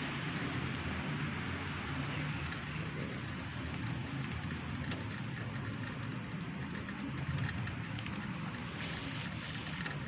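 Steady outdoor background noise during heavy snowfall: a low rumble under a soft hiss, with a few faint ticks.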